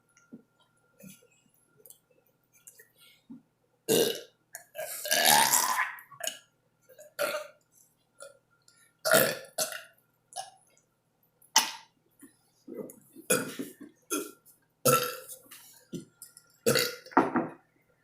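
A run of deliberate burps brought up after gulping soda: about a dozen, most short and sharp, with one long drawn-out burp about five seconds in.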